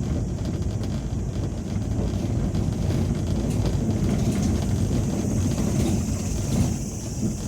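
Ambulance driving, heard from inside the cabin: a steady low rumble of engine and road noise.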